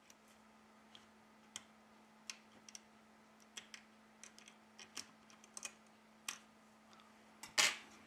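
Light, irregular clicks and taps of metal tweezers working at a phone's internal parts and thin antenna cable, with one louder, longer scrape near the end. A faint steady hum sits underneath.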